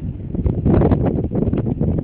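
Wind buffeting the microphone: an irregular low rumble that surges about half a second in.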